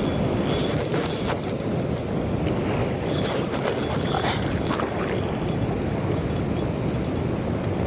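Steady, low rushing noise of wind buffeting the microphone over the rush of river water at the dam.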